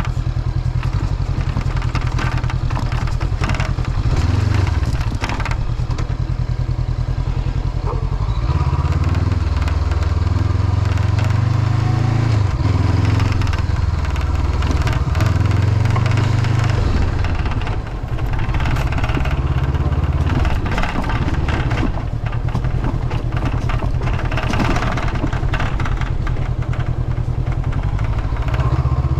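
Honda CB500X's parallel-twin engine running under way, its pitch rising and falling with the throttle, with a steady clatter from the windshield, which rattles because it is missing a screw.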